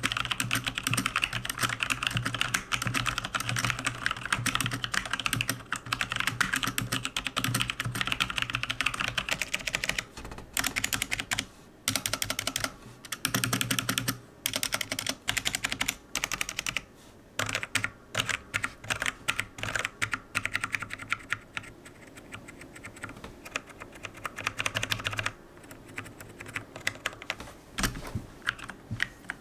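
Typing on the Romer-G Tactile key switches of a Logitech G413 Carbon mechanical keyboard. Fast, continuous key clicks for about the first ten seconds, then slower, scattered keystrokes with short pauses between them.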